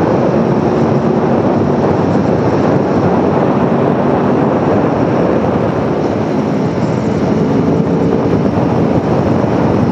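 Aprilia Tuono V4 1100 motorcycle being ridden at a steady pace: its V4 engine runs evenly under loud wind rush on the microphone.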